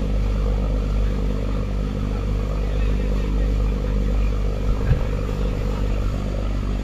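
Motorboat engine running steadily at speed, with water rushing past the hull; a single brief thump about five seconds in.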